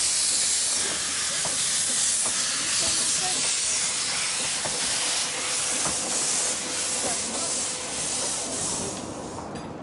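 Narrow-gauge steam locomotive hissing loudly as it vents steam low around its wheels while moving off past. The hiss thins out near the end as the coaches follow.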